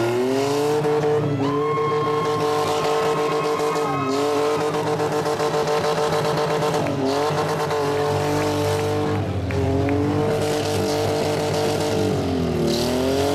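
Demolition derby car engines revving hard, held high for a few seconds at a time, then dipping and climbing again several times.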